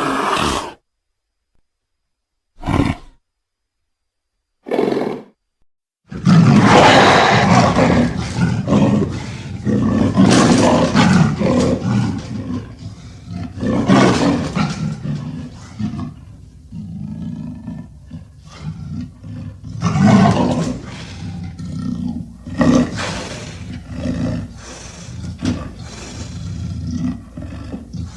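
Mixed leopard and wolf sound effect of roaring calls. It opens with a few short calls separated by silence; from about six seconds in, a long, continuous run of roars rises and falls in loudness.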